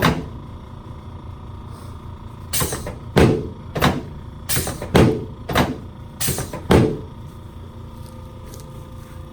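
Chiropractic adjustment of the lower back at L5: a sharp knock at the start, then a quick run of about eight sharp cracks and thumps over some four seconds, from spinal joints popping and hand thrusts against the adjusting table.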